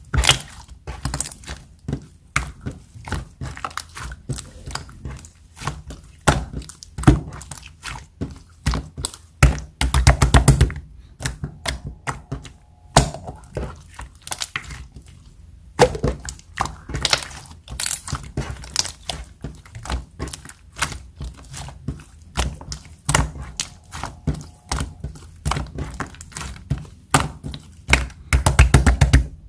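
Clear slime being squished and poked by hand, making a dense run of small wet popping clicks, with a faster burst of crackling pops about ten seconds in and again near the end.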